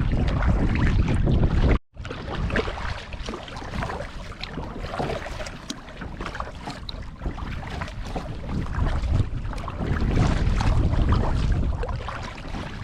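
Kayak paddle strokes splashing and dripping on the water, with wind buffeting the microphone. The wind rumble is heavy at first, cuts out abruptly about two seconds in, and swells again near the end.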